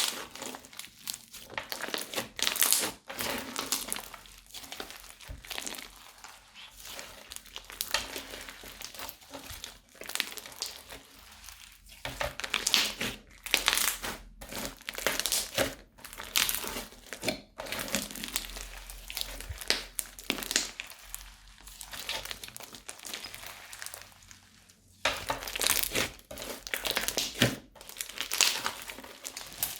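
Crunchy slime being squeezed and worked by hand in plastic piping bags, giving dense, irregular crinkling crackles with short pauses.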